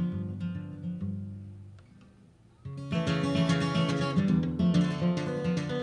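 Acoustic guitar: a few picked notes ring and die away, then about two and a half seconds in, loud strummed chords start up and carry on.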